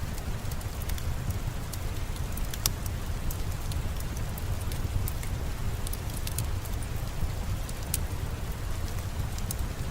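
Steady rain falling outside, with a low steady rumble and the sharp, irregular pops and crackles of a wood fire burning in a fireplace.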